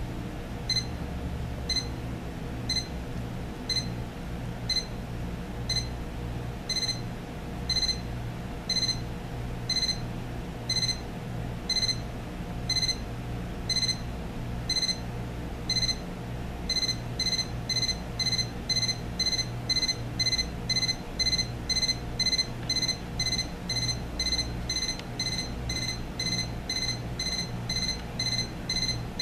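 The Westclox 72027 digital alarm clock's alarm going off: short, high electronic beeps. They come about once a second at first, then about twice as fast after some sixteen seconds, growing louder. A low steady hum runs underneath.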